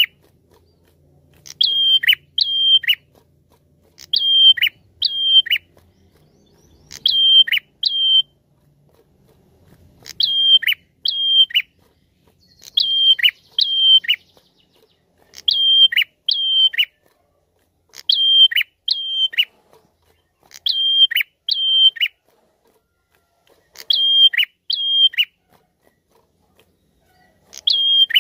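Caged prenjak (tailorbird) singing its lure call: short phrases of two or three sharp whistled notes, each dropping steeply in pitch at its end, repeated about every two and a half seconds.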